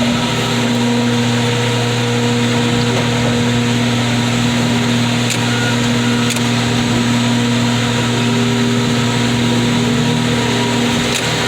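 Heavy scrapyard machinery at a car crusher running with a steady, unchanging hum and drone.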